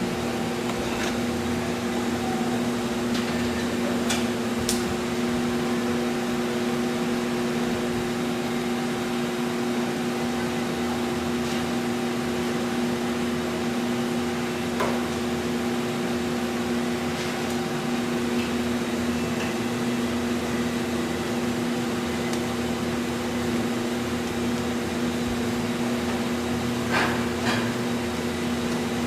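Steady machine hum with several fixed tones over a constant hiss, like a motor or ventilation unit running, with a few faint clicks and knocks.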